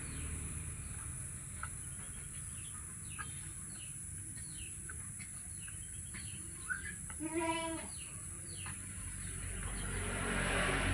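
Small birds chirping in short, falling notes, with a chicken giving one short call about seven seconds in, over a steady high hiss.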